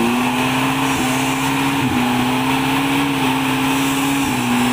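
Suzuki Vitara off-roader's engine held at high, steady revs as it pushes through deep mud, the pitch dipping briefly about two seconds in and stepping down slightly near the end.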